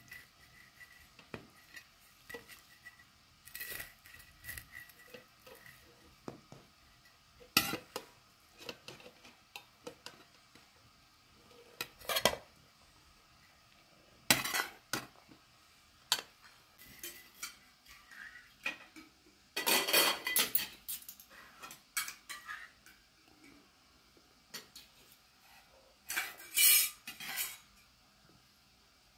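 Metal spoon clinking and scraping against aluminium serving trays and plates as rice pilaf is dished out and eaten, in irregular clatters with several louder bursts.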